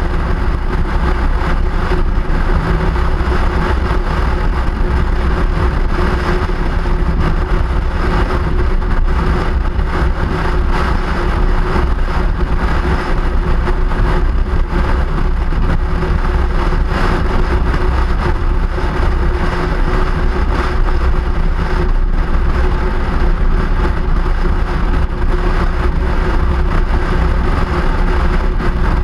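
Steady noise of a vehicle on the move, with a faint hum running under it.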